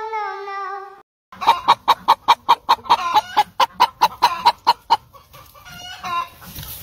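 A hen clucking in a fast, even run of about five clucks a second for roughly three and a half seconds. It comes after a short stretch of a hummed, sung tune that cuts off about a second in.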